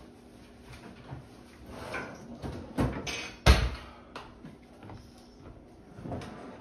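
Kitchen handling noises: a few knocks and clunks as jars and containers are handled at a wooden counter, the loudest about three and a half seconds in.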